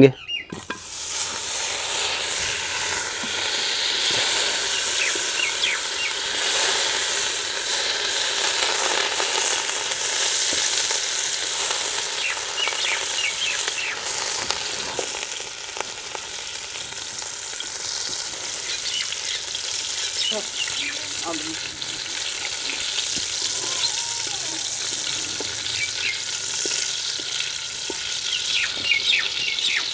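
Butter melting and sizzling in a hot metal wok, a steady frying hiss that starts about half a second in, while it is stirred with a wooden spatula.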